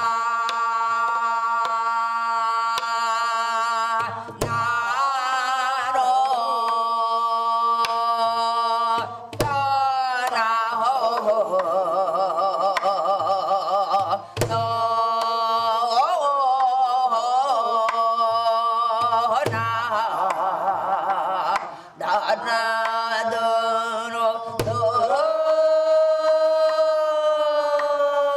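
Korean gueum (wordless vocal 'mouth music'): a voice singing held and sliding notes with a wide, wavering vibrato, over a steady drone and low drum strokes about every two and a half seconds.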